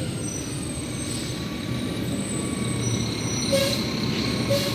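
Garbage truck pulling up: its diesel engine running, brakes squealing with a thin high tone, and two short hisses of air near the end.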